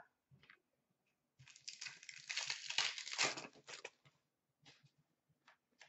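Foil trading-card pack wrapper being torn open: crinkling and tearing for about two seconds, then a few faint ticks.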